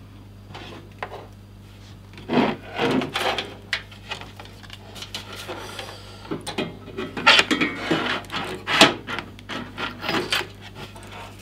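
Computer cables being handled and pulled through the back of a PC case: irregular rubbing and scraping of cable sheaths against the case and each other, busiest in the second half, over a low steady hum.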